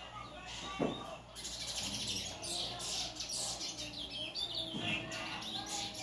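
Caged bullfinch (the Trinidad bullfinch, a chestnut-bellied seed finch) singing a rapid, busy run of high chirping notes. A lower, falling sound cuts in about a second in and again near the end, over a faint steady low hum.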